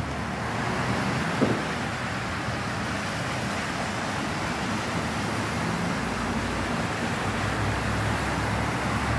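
Vehicles driving through a flooded street, their tyres pushing and splashing through the deep water, over a steady wash of noise. A deeper engine rumble grows near the end as another vehicle passes.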